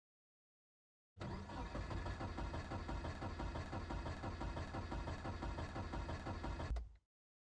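A car's starter cranking the cold engine without it catching: an even, rhythmic churning of about three pulses a second. It starts abruptly about a second in and stops abruptly about a second before the end, with dead silence either side.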